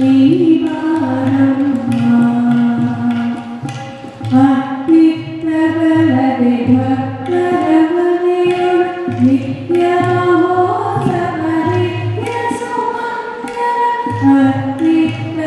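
Indian devotional music: a singer holding long melodic notes that step and slide in pitch, with instrumental accompaniment underneath.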